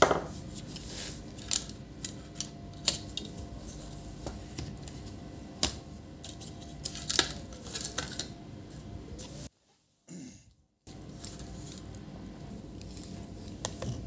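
Scattered light clicks and taps of a laptop motherboard and its plastic chassis being handled as the board is lifted out, with a sharper knock at the start and a brief dropout to silence about ten seconds in.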